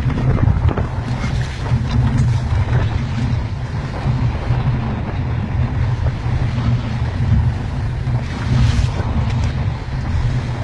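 Strong wind buffeting the microphone aboard a fishing boat at sea in rough weather, a steady low rumble over the boat's own noise and the waves.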